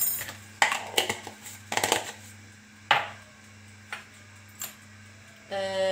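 Scattered clicks and knocks of a spoon and small dishes against a stainless steel pot and a stone countertop, about seven in all, the sharpest near the middle, over a steady low hum. A woman's voice starts just before the end.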